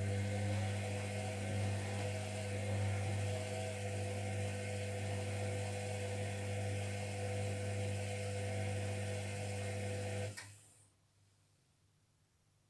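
Zerowatt/Hoover Performa 1000 HZ1042 washing machine's motor running steadily with a humming whine and a brushy hiss as it turns the drum during the wash, then stopping about ten seconds in.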